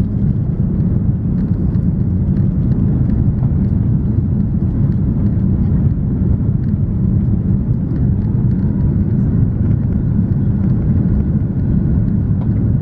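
Cabin noise inside an Airbus A340-300 on approach with flaps extended, heard from a window seat over the wing: a steady low rumble of the engines and rushing air.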